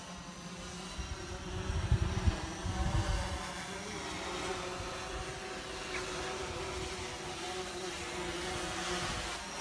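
Yuneec Typhoon H drone hovering overhead, its propellers giving a steady hum whose pitch wavers slowly. Wind buffets the microphone in low gusts about two to three seconds in.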